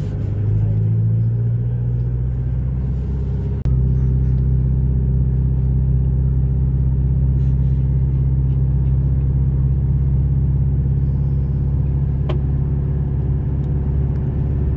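Car engine and tyre drone heard from inside the cabin while driving, steady and low. It jumps louder suddenly about four seconds in.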